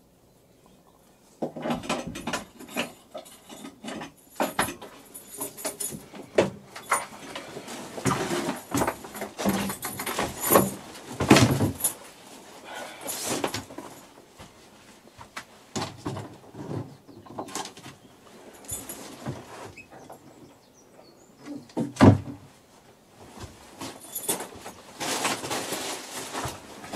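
Irregular knocks, creaks and rustles of someone moving about a wood-panelled cabin with a backpack, with one sharp thump about 22 seconds in.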